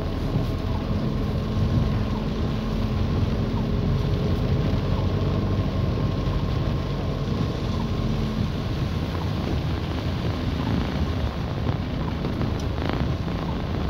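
Car driving slowly through a rain-soaked, flooded street, heard from inside the cabin: steady engine hum with tyre and water noise, and a brief knock near the end.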